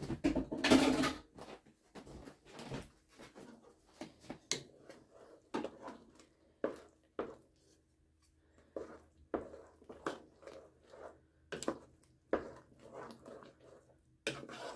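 Wooden spoon stirring chunks of apple through a simmering, thickening cornstarch pie filling in a pot, with irregular knocks and scrapes of the spoon against the pot. A louder clatter about half a second in.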